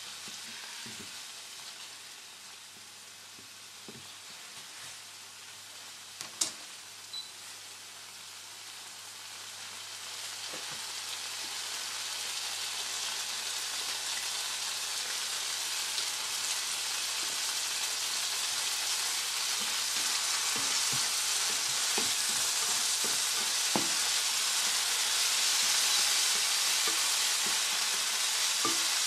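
Chopped tomatoes sizzling in oil in a nonstick frying pan. The sizzle grows steadily louder from about a third of the way in, as more oil goes into the pan. A plastic spatula scrapes and taps against the pan now and then, and there is one sharp click about six seconds in.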